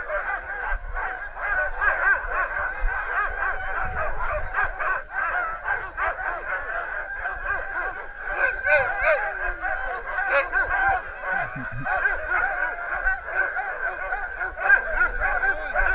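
A yard of sled huskies barking and yipping together in a continuous, overlapping chorus, the excited noise harnessed sled dogs make while they wait to go on a run.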